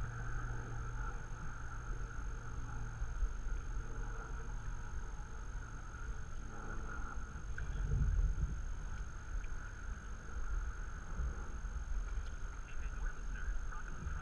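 Water lapping against a stand-up paddleboard as it is paddled, with a low wind rumble on the microphone; a louder low swell about eight seconds in.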